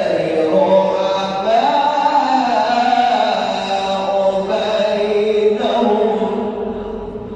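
A man's voice reciting the Quran in the melodic tajweed style, holding long notes that glide up and down. The voice trails off near the end.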